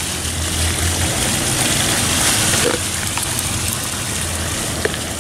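Steady rush of splashing water from a fountain, with a faint click or two from handling a small plastic geocache container.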